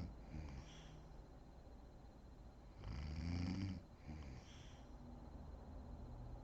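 A woman snoring in deep sleep. A loud snore comes about three seconds in, and each snore is followed by a softer, shorter breath.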